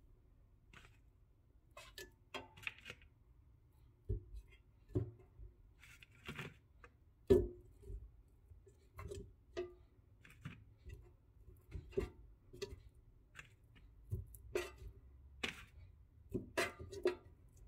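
Coated chicken wings being set one at a time into a Cosori air fryer basket: irregular soft taps and knocks of the pieces and fingers on the nonstick grate, with a faint low hum underneath.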